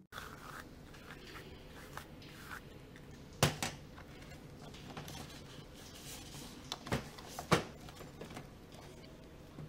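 A few small knocks and clicks of objects being handled on a shelf in a quiet room: the sharpest knock about three and a half seconds in, and several more close together around seven seconds.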